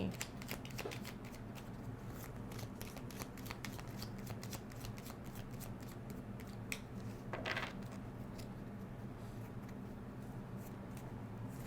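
A deck of tarot cards being shuffled and drawn by hand: a run of soft, quick card flicks and slides over a steady low hum.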